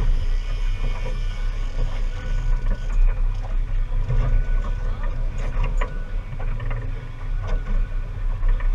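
Boat engine running steadily at trolling speed, a low rumble mixed with wind and water rush, with scattered light ticks through it.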